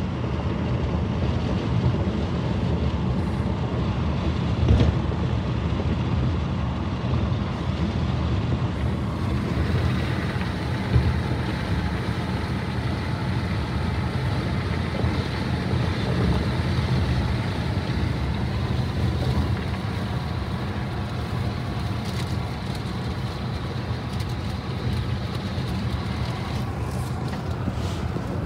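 Steady road and engine noise inside the cabin of a moving vehicle, with a short thump about five seconds in and another about eleven seconds in. A brighter hiss joins about nine seconds in.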